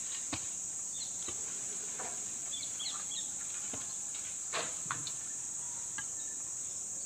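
Steady high-pitched insect drone, with a few scattered knocks and thuds from a long iron digging bar being worked into the soil around a tree stump. Brief bird chirps come in now and then.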